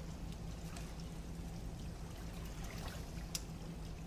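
Hot water of a foot bath flowing and trickling steadily, with a sharp click a little over three seconds in.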